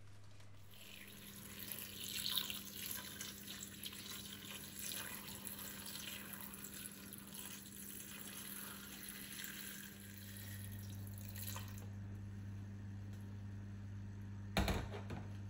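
Kitchen tap running into a sink with splashing for about ten seconds, then shut off. A single sharp knock comes near the end.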